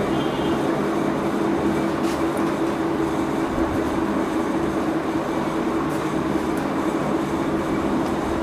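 Steady mechanical drone with a constant low hum, and a couple of faint light ticks about two and six seconds in.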